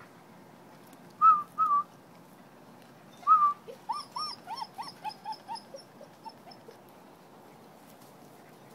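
German Shepherd puppy whining: two short high-pitched whines, then a run of about a dozen quick rising-and-falling whimpers that fade out.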